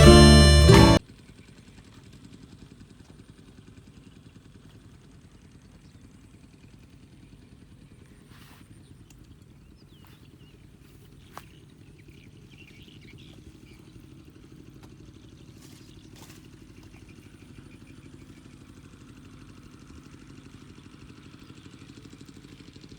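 Music cuts off about a second in, giving way to a faint, steady low drone of a small engine running, with a single sharp click about eleven seconds in.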